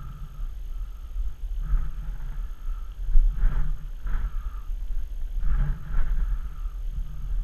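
Wind buffeting the camera microphone in a steady low rumble, with the rustle of the player moving between bunkers and a few sharp knocks near the middle.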